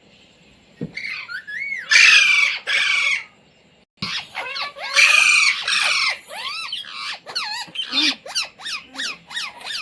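Indian ringneck parakeet squawking and whistling: two loud, harsh squawks about two seconds in, then a run of quick whistled chirps that swoop up and down, with another harsh squawk about five seconds in.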